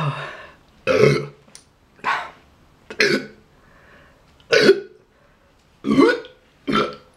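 A woman burping loudly again and again: seven burps in a row, about one a second, brought up by a fizzy can of Schweppes she has just drunk.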